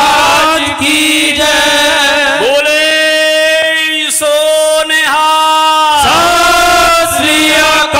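Devotional chanting from a shabad performance: a single voice over a sound system, drawing out long held notes that slide into pitch and fall away between them.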